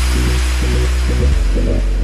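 Background electronic music: a deep steady bass under a short repeating melody, with a hissing sweep that fades out over the first second or two.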